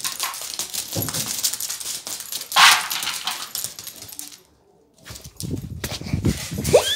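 A small dog scuffling and playing on carpet close to the phone, mixed with knocks from the phone being handled and a short, loud, noisy burst in the middle. The sound cuts out for about half a second past the middle, then comes back with low thumps.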